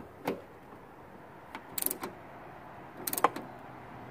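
Ratchet socket wrench tightening a spoiler bolt: its pawl clicks in two short, quick runs on the back-swings, with a few single clicks in between.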